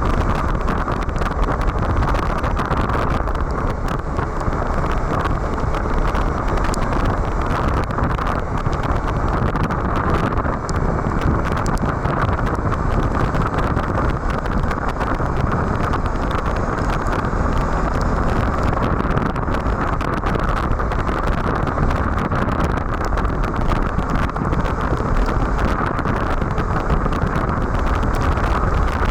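Steady wind and road noise from a Suzuki V-Strom 1050XT ridden at a constant speed, with wind buffeting the microphone.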